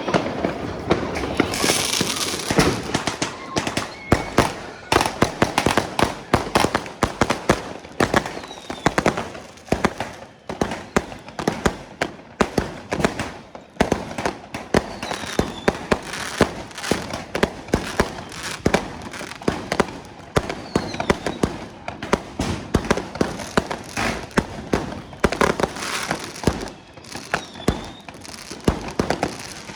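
Fireworks going off all around in a dense, unbroken stream of overlapping bangs and crackles, several a second.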